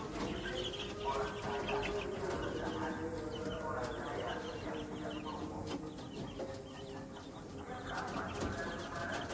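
A brood of two-week-old KUB chicks peeping together: many short, high calls overlapping in a steady chorus.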